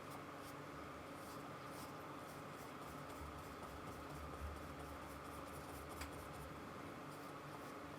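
Faint scratchy strokes of a paintbrush laying acrylic paint onto the painting, many short strokes in a row over a steady low background hiss.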